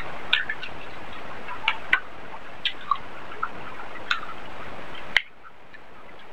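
Wet chewing and lip smacks with fingers squishing rice and chicken curry on a plate: a scatter of short wet clicks over a steady hiss. About five seconds in there is a sharp click and the hiss drops away.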